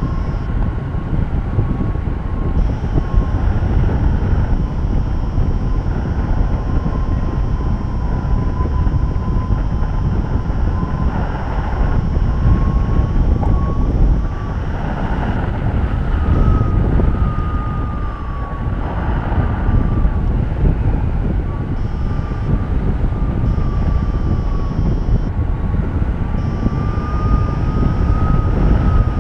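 Airflow buffeting the camera's microphone in flight: a steady rushing rumble that swells and eases every few seconds. A thin, continuous high tone sits on top, wavering and stepping up slightly in pitch a little past halfway and again near the end.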